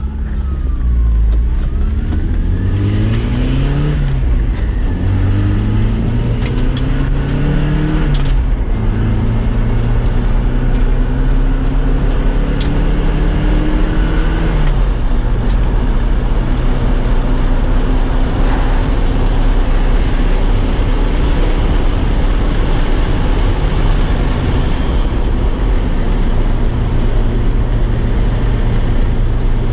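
Porsche 944's four-cylinder engine accelerating through the gears, its pitch climbing and dropping back at each of three upshifts, then holding at a steady speed under a constant rushing noise.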